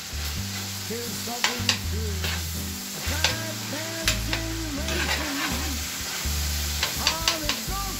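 Mince frying and sizzling in a pan while it is stirred with a wooden spoon and a metal spoon, with several sharp clicks of the utensils against the pan.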